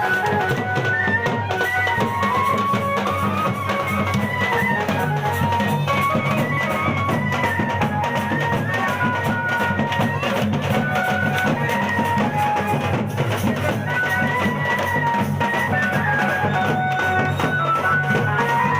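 Music: a high melody line moving between held notes over a steady bass and a dense, fast drum beat.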